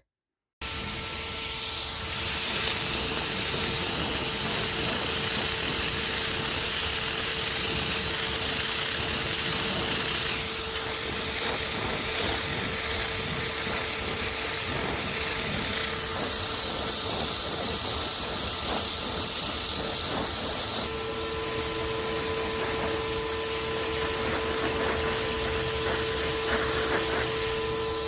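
Electric glaze sprayer running: a steady motor whine under a hiss of air and spray. The hiss shifts in tone a few times, and the whine grows stronger about two-thirds of the way through.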